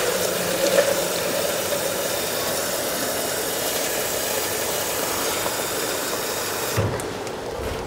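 Kitchen tap running steadily into a plastic measuring jug, turned off near the end. A steady hum from the cooker-hood extractor fan runs underneath.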